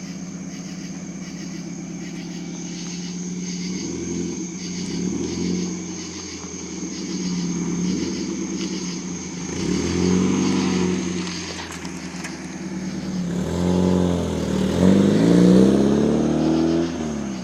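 Mazda Miata's four-cylinder engine idling through its exhaust and revved several times, each rev rising and falling back to idle, the last revs around the end the highest and loudest before the engine drops back.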